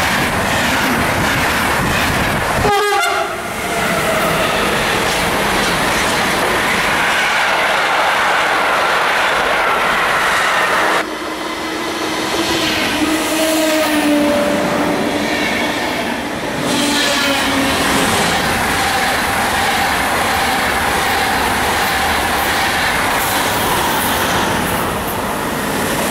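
Electric passenger trains running past at speed, several passages cut one after another: coaches rolling by with wheels clattering over the rails. A horn-like tone is held for a few seconds around the middle.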